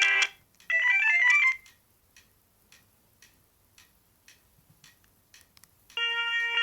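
Ringtone melodies from an Alcatel OT-E256 mobile phone's speaker while browsing its ringtone list: one tune cuts off just after the start, a second plays for under a second and stops, then there are faint regular ticks about twice a second before another ringtone starts near the end.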